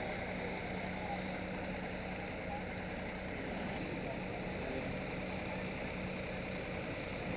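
Steady outdoor background noise with a low, even hum running under it.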